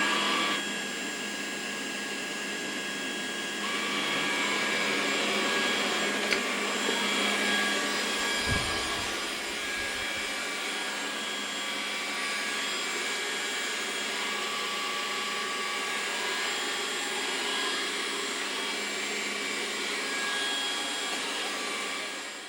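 Trifo Ollie robot vacuum running: its suction motor and brushes make a steady whirring hum with a few faint high tones.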